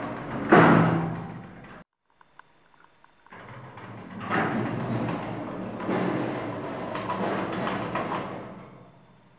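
Elevator's sliding doors close with a bang about half a second in. After a brief silence, they slide open again over several seconds, with a few surges before they go quiet.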